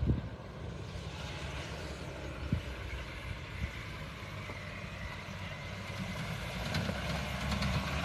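Mahindra Thar's engine running as it drives through loose sand, a steady low rumble that grows louder near the end as the vehicle comes closer.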